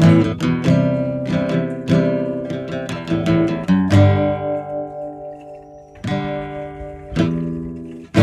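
Acoustic guitar strumming chords briskly, then slowing to single strummed chords left to ring out, about 4, 6 and 7 seconds in.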